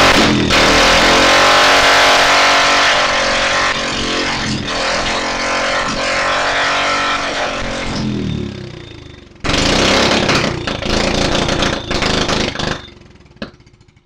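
Go-kart's small petrol engine running fast, then slowing with its pitch dropping about eight seconds in, suddenly running loud again for about three seconds, and dying away near the end. The engine will not yet hold an idle.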